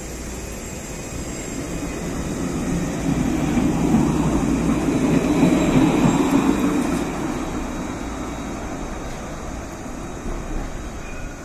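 Alstom Citadis 302 tram running past at close range along the platform. Its rolling rumble builds, is loudest about four to six seconds in, then fades as it moves away.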